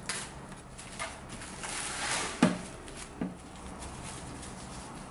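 Cling film crinkling and rustling as it is drawn over and tucked around a metal baking tray, with a sharp knock on the tray about two and a half seconds in that leaves a brief low ring, and a lighter knock just under a second later.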